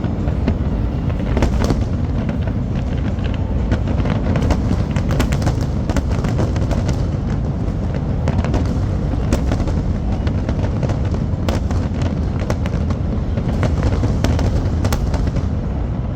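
Fireworks display going off: a continuous low rumble of bursts, with many sharp cracks and bangs scattered through it.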